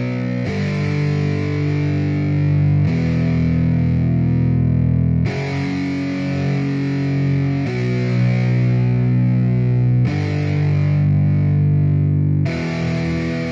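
Music: sustained distorted electric guitar chords, changing about every two and a half seconds.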